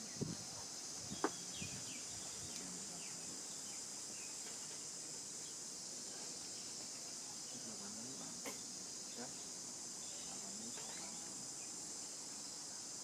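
Steady high-pitched insect chorus, with a few faint short squeaks and a sharp click about a second in.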